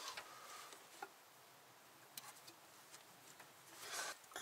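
Near silence with a few faint, light clicks about a second in and between two and three seconds, then a brief rustle near the end as a gloved hand reaches into the engine bay to fit a spark plug.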